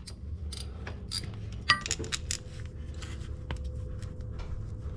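Hand socket ratchet with a 10 mm socket loosening a small bolt, its pawl clicking at an uneven pace, with a sharper metallic clink just under two seconds in.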